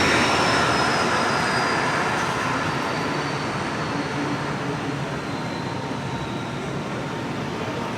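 A passing vehicle with a rushing noise that slowly fades away, and a faint whine above it gliding gently down in pitch.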